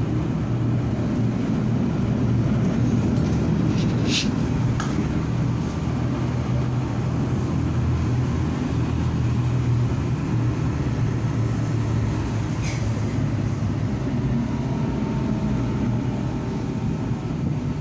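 Steady low running rumble of a city public-transport vehicle, heard from inside the passenger compartment, with two brief high squeaks about 4 seconds in and again near 13 seconds.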